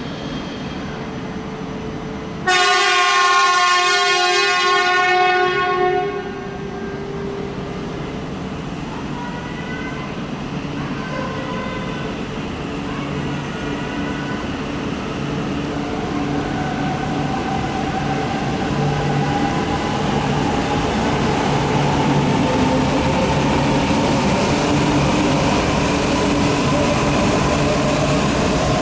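E4 series Max Shinkansen sounding one long horn blast of about three and a half seconds, a few seconds in. The train then pulls away, its motor whine slowly rising in pitch over a steady rumble.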